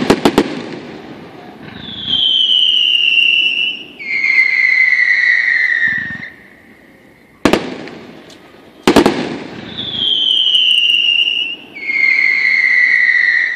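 Fireworks display: a quick cluster of sharp bangs, then two long whistling fireworks one after the other, each a clear tone sliding slightly down in pitch. Midway two more sharp bangs go off, followed by another pair of falling whistles.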